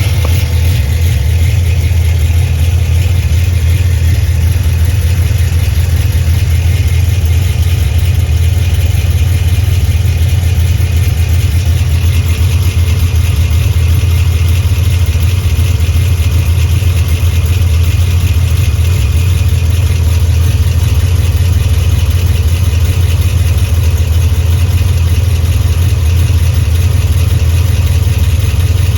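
Cammed Pontiac G8 GT's 6.0-litre V8 idling steadily through Stainless Works headers and high-flow cats, with an exhaust leak just before the mid muffler.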